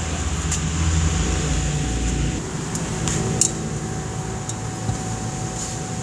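Single-cylinder scooter engine with an aftermarket titanium exhaust, idling with a low rumble that stops about two seconds in. After that comes a steady hum with a few light metallic clicks, the loudest about three and a half seconds in.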